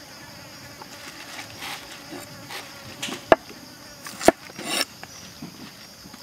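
Kitchen knife cutting through bok choy stems on a wooden cutting board: two sharp knocks about a second apart, the blade hitting the board, with short crisp rustles of the stalks and leaves. A steady high insect buzz runs underneath.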